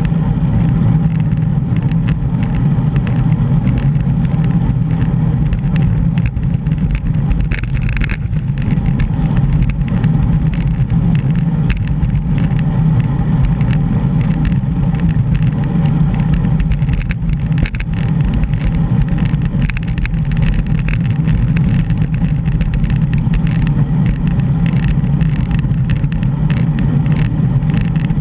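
Steady low rumble of wind and road noise from riding a bicycle with a GoPro, with small rattles and clicks throughout.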